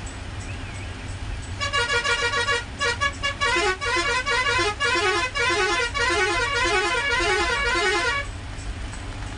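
Bus's musical horn playing a rapid, stepping multi-tone tune for about six and a half seconds, starting about a second and a half in. Under it runs the steady low rumble of the Ashok Leyland bus's engine and road noise.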